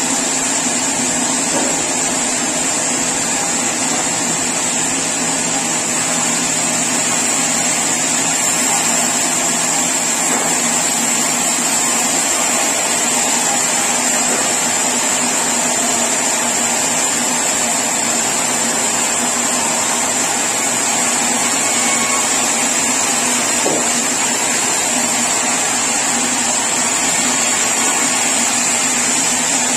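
Sawmill saw machinery running steadily, a loud, even mechanical hum with a constant high whine.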